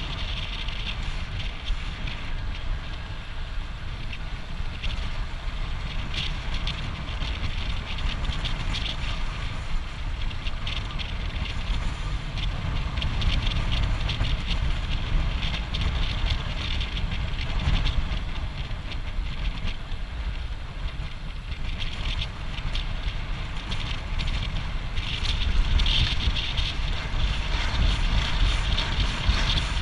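Wind buffeting a camera microphone on a fast road-bike descent: a steady low rumble with the hiss of the bike's tyres on asphalt, a little louder near the end.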